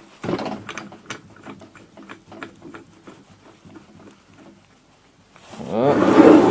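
Aluminium crankcase of a Yamaha DT two-stroke engine knocked and shifted about on a plywood bench as it is turned over by hand, with a string of short knocks and clicks. About five and a half seconds in comes a loud, groaning scrape lasting about a second as the engine is dragged round on the wood.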